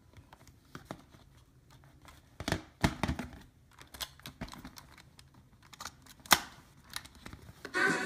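Mechanical clicks and clunks of an original blue-and-silver Sony Walkman TPS-L2 cassette player as its side keys are pressed and the player is handled, with a cluster of clicks about two and a half seconds in and one sharp click about six seconds in. Music starts playing just before the end.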